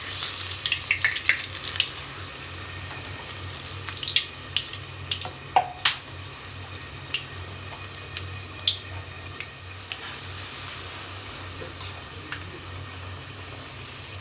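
Puris deep-frying in hot oil: a steady sizzling hiss with scattered crackles, busiest in the first couple of seconds, and a cluster of sharp clicks about four to six seconds in.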